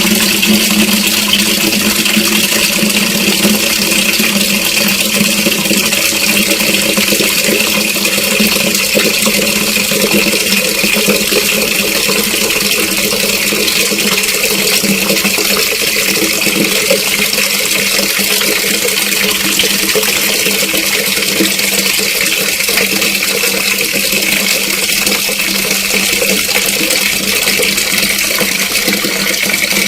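Water running steadily from an open tap into a bucket, filling it.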